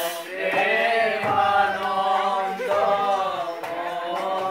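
A group of men's voices chanting together in long, held notes.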